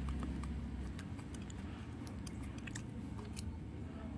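Screwdriver tightening a small screw into the plastic battery cover of a toy train engine: faint scattered clicks and scrapes. A low hum fades out about a second in.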